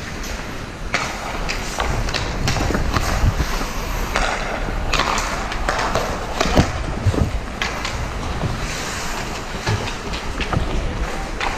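Ice hockey skate blades scraping and carving on the ice, with a string of sharp clacks of sticks and puck, over a steady low rumble.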